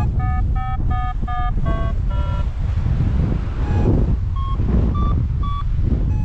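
Wind rushing over the microphone of a paraglider in flight, with the variometer beeping over it: short beeps about three a second for the first two seconds or so, wavering in pitch, then three sparser, higher beeps near the end.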